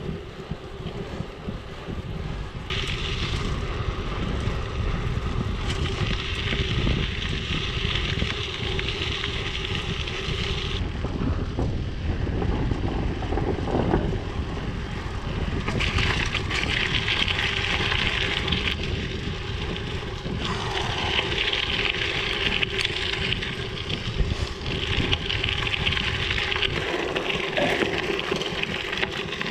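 Mountain bike tyres rolling over gravel, a steady crunching hiss that comes and goes in long stretches as the surface changes, with wind rumbling on the microphone.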